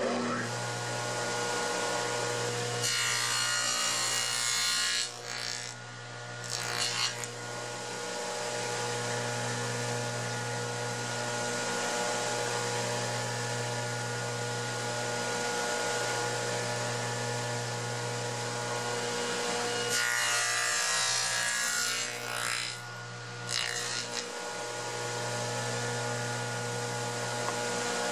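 Table saw with a dado stack running steadily, cutting box-joint slots in a strip of spruce on a box joint jig. There are two longer cuts, about 3 s and about 20 s in, each followed by one or two short ones.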